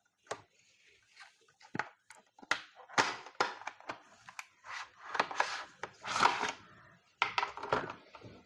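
Wiper blade packaging being handled: a string of crinkles, snaps and clicks, with louder bursts about three and six seconds in.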